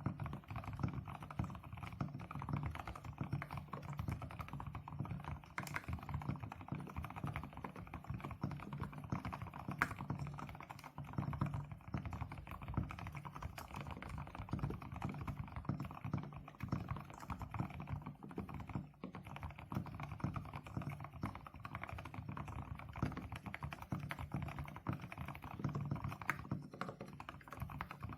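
Fast continuous typing on a Swagkeys Eave65 mechanical keyboard with HMX Sunset (Moksae) silent linear switches, an FR4 plate and thick PBT keycaps: a dense stream of muted, low keystrokes. The dampened switches give a soft, scratchy sound like writing with chalk on a blackboard.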